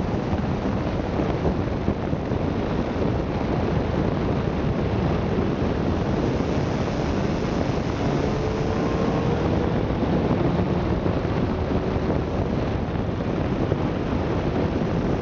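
Wind rushing over the microphone of a riding motorcycle, with the engine running underneath, steady throughout.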